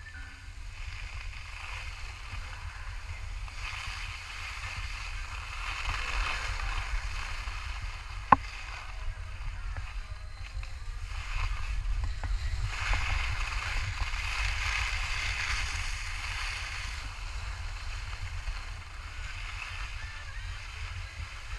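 Skis hissing and scraping over groomed snow on a downhill run, the hiss swelling and easing twice, with wind rumbling on the camera microphone. A single sharp click about eight seconds in.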